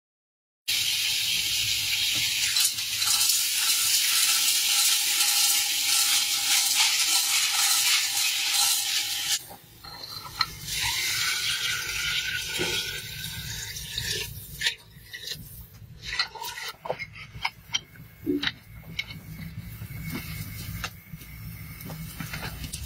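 A loud steady hiss from the metal cooking pot over the wood fire for about nine seconds, then water poured from a kettle into the pot, and clinks and knocks of the metal pot, lid and handles.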